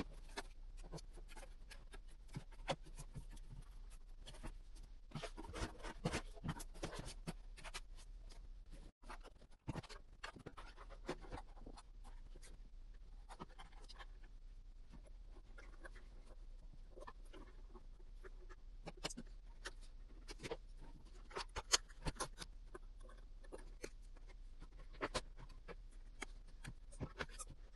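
Scratching, rubbing and light tapping of hand work on a cardboard model plane, with many small irregular clicks over a steady low hum.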